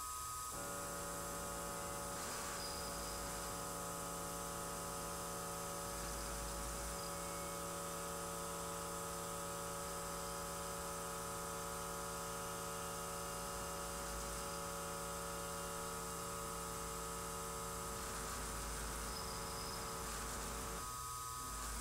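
Benchtop milling machine's spindle motor starting up, running with a steady whine for about twenty seconds, then shutting off.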